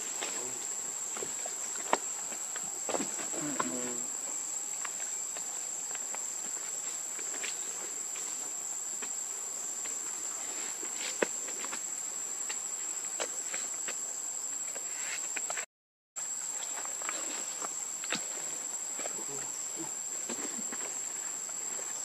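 Steady high-pitched insect drone, with scattered faint ticks and rustles. The sound cuts out completely for about half a second a little past the middle.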